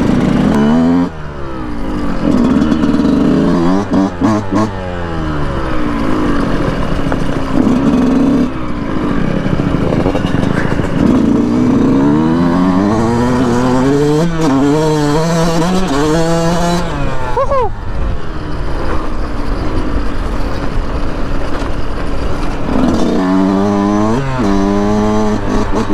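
Yamaha YZ125 two-stroke dirt bike engine under way, revving up and easing off again and again, its pitch climbing in steps as it accelerates through the gears.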